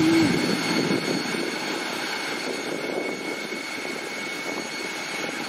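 Jet turbine running with a steady high-pitched whine over a rushing noise. It is loudest in the first second or so, then eases a little and holds steady.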